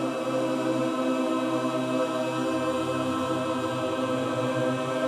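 A group of voices toning together, holding long, steady notes in chakra toning.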